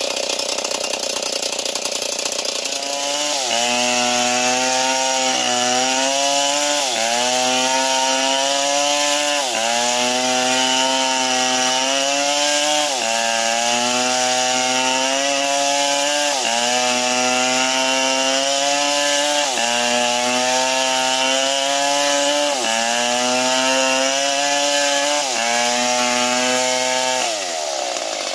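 Stihl MS 070 two-stroke chainsaw ripping lengthwise through a large mango log, its engine loaded in the cut. From about three seconds in, the engine pitch sags and recovers every two to three seconds as the chain bites and frees. Near the end the throttle is released and the engine winds down.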